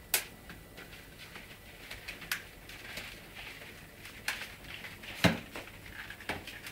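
Wicker wastebasket knocking and scraping over tile floor and doormat as a bull terrier puppy shoves it along with its head, with about five sharp knocks, the loudest about five seconds in.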